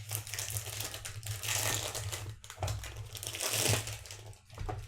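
Cellophane wrapping on a perfume box crinkling and crackling as it is torn open and pulled off, in irregular bursts that thicken twice.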